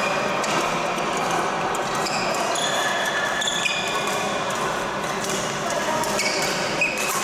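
Badminton rally: sports shoes squeaking on the court floor in short chirps, with the sharp clicks of rackets hitting the shuttlecock.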